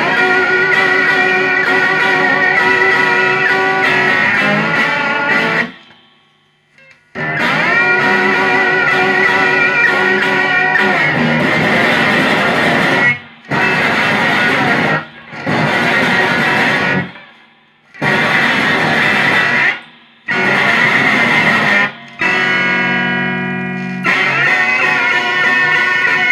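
Free-improvised guitar played loud in dense, held chords and noise that cut off abruptly about six times, each time resuming after a short gap; near the end a steadier held low tone sounds briefly before the full playing comes back.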